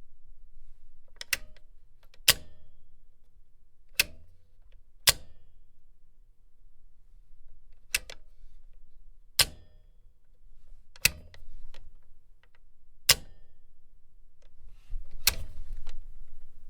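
A machine's switch being clicked repeatedly: about nine sharp single clicks, one to three seconds apart. A low hum runs underneath and swells for a moment at times.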